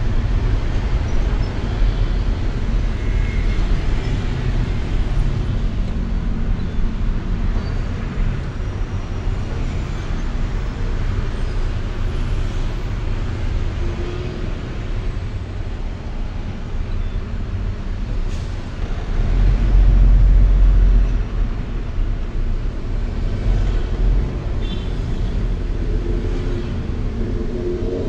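Road traffic: a steady low rumble of vehicle engines and tyres, with a louder, deeper rumble for about two seconds some twenty seconds in.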